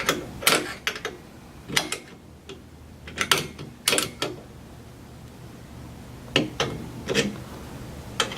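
Metal clicks and clinks of a multi-hex tool being fitted and turned on a stabilizer bolt, tightening it down: irregular sharp clacks in small clusters, with quiet gaps between.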